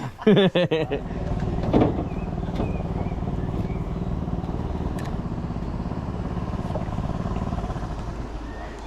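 Small boat outboard motor running steadily at low speed, easing off near the end.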